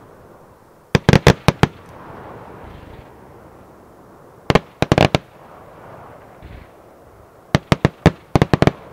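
Aerial fireworks going off in three quick volleys of sharp bangs: about a second in, around five seconds in, and a longer run of about eight bangs near the end.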